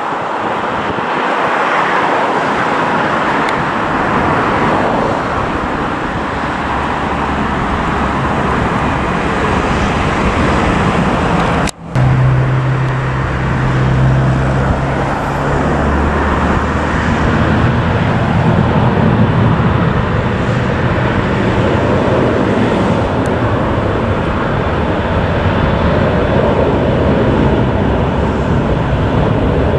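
Jet engine noise from Boeing 737s: a 737-800 rolling out just after touchdown, a steady loud rush. About 12 seconds in there is a sudden cut to a 737-700 on the runway with its engines running, a steady low hum under the rushing noise.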